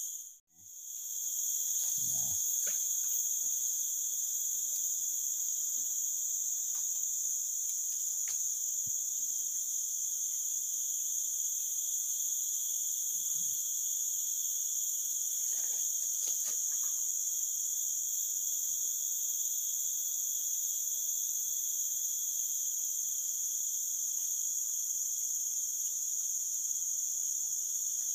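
Steady, high-pitched chorus of tropical forest insects, several pitches sounding at once without a break.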